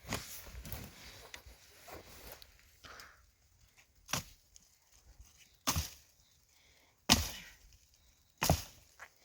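Axe chopping firewood: four sharp strikes on wood at an even pace, about one and a half seconds apart, in the second half, after softer knocking and rustling.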